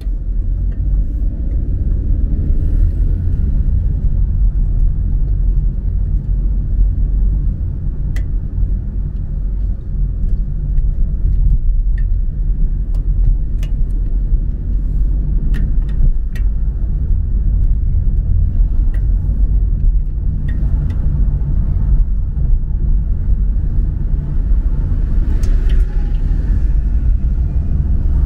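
Car driving along, a steady low rumble of engine and road noise, with a few faint clicks now and then.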